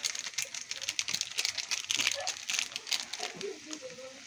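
Plastic Maggi masala sachet crinkling as it is handled and emptied over the pan, a dense run of small crackles that thins out near the end.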